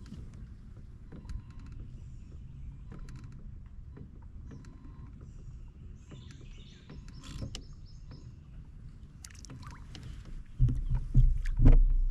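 Water moving against a kayak with small knocks on the hull, and birds chirping now and then. In the last second or so come several loud, dull thumps and knocks.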